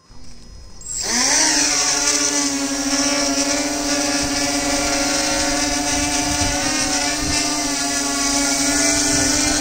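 Multirotor drone's electric motors and propellers spinning up with a rising whine about a second in, then a steady buzz as it lifts off and hovers.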